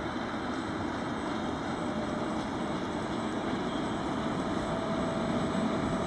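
Steady rumble of a passing train, slowly growing louder, with a faint steady whine.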